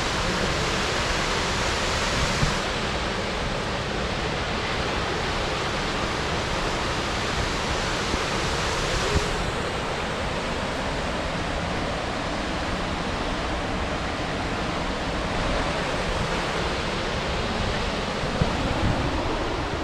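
Steady rush of white water from a mountain creek and its falls. It gets a little duller in two steps, about two and a half and nine seconds in.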